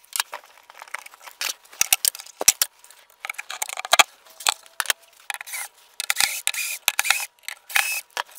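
Quick run of metallic clicks, clinks and clatter as Blum Aventos HL lift-mechanism parts and steel arms are unclipped from a plywood cabinet and set down on the bench, with a brief whine of a cordless drill driver backing out screws about four seconds in.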